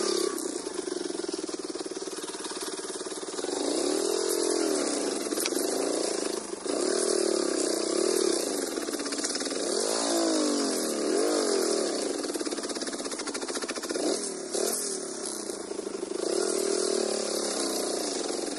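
Small motorcycle engine revving up and down in repeated surges, the pitch rising and falling every couple of seconds, as it pulls up a steep dirt trail.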